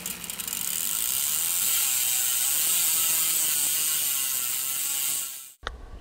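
Bicycle freehub ratcheting as a wheel spins freely: a fast, hissy buzz that wavers up and down in pitch, cutting off suddenly about five and a half seconds in. Quieter outdoor sound with a few clicks follows.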